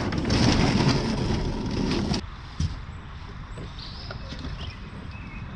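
Steady road noise from a moving vehicle for about two seconds, cutting off suddenly. After that comes quiet outdoor background with a few faint bird chirps.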